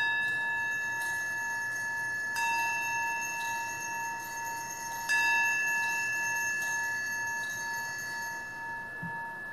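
Altar bells (Sanctus bells) rung three times, about two and a half seconds apart, each ring hanging on and fading slowly. At Mass this ringing marks the elevation of the chalice just after its consecration.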